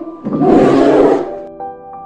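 A bear roaring once, a loud, rough call lasting about a second, over background music with sustained tones.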